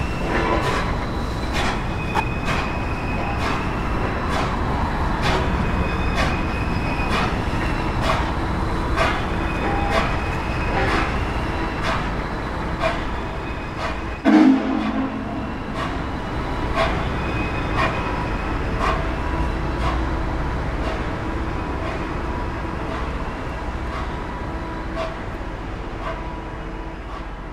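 Passenger cars of the N&W 611 steam excursion train rolling past, their wheels clicking steadily over rail joints with a thin steady squeal, fading toward the end. About halfway through there is one short, loud, low blast.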